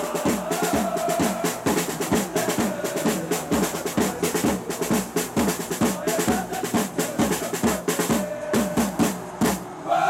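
Supporters' drum section playing a fast, steady beat on snare drums and large marching drums, the drumming briefly thinning out just before the end.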